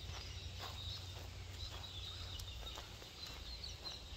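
Faint outdoor ambience: scattered high chirps of distant birds over a steady low rumble of breeze on the phone's microphone.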